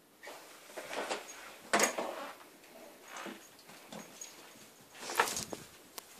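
A dog sniffing close to the microphone: several short, noisy sniffs, loudest about two seconds in and again about five seconds in.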